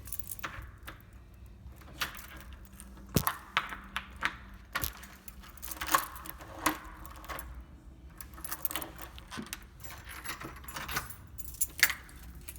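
A bunch of keys jangling as it is handled, with many short metallic clicks and rattles spread through the stretch.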